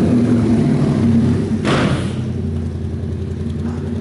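Yamaha MT-07's 689 cc parallel-twin engine running through a hand-made exhaust as the bike pulls away, with a short harsh burst of throttle just before two seconds in. The engine note then drops in level as the bike moves off.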